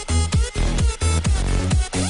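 Electronic dance music with a steady kick-drum beat, about two beats a second, over held synth notes.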